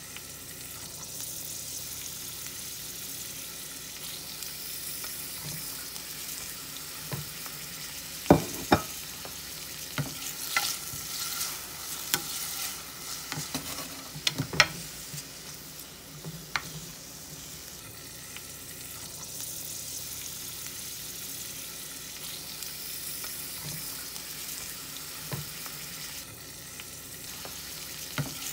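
Vegetables sizzling in oil in a stainless-steel skillet, a steady hiss, with a spatula stirring and now and then knocking and scraping against the pan; the sharpest knock comes about eight seconds in.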